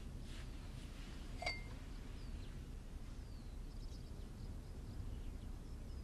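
Quiet room ambience: a low steady rumble with faint, short bird chirps now and then, and a single short ringing clink about one and a half seconds in.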